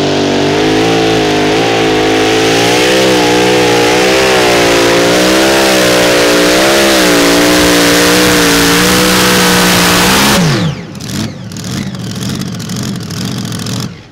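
Supercharged engine of a Mini Rod pulling tractor running at full throttle under load, its pitch wavering up and down as it pulls. About ten seconds in the revs fall away sharply as the pull ends, followed by irregular crackling and popping.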